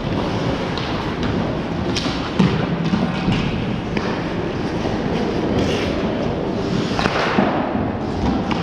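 Ice hockey game in play: a steady rumble and scrape of skates on ice, broken by sharp clacks of sticks and puck, the loudest about two and a half seconds in.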